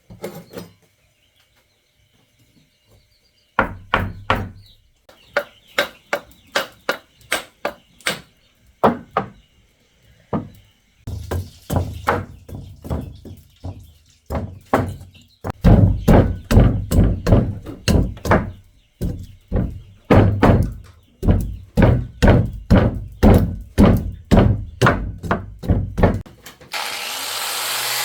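Repeated hammer or mallet knocks in uneven runs, about two to three a second. Near the end an electric tool's motor starts and runs steadily.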